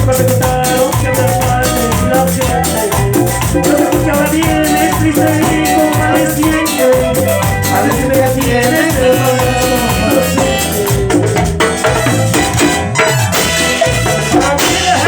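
Instrumental passage of chichera band music (Ecuadorian tropical cumbia): a steady, fast percussion beat under a sustained melodic lead, with no singing.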